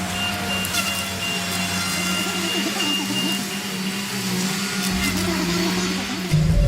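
Heavy forestry machine's engine and hydraulics running steadily with a constant hum, with a few light clicks; about six seconds in, it changes abruptly to a louder, deeper engine sound.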